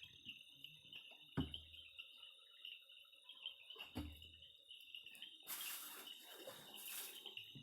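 Faint steady insect chorus, a high continuous trill like crickets. Two dull low bumps come about one and a half and four seconds in, and a hissing rustle comes near the end.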